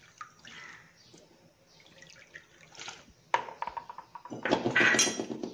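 Water poured from a glass into a steel pan of gram flour and curd, splashing loudly in the last second or so; a sharp knock a little after three seconds in comes before the pour.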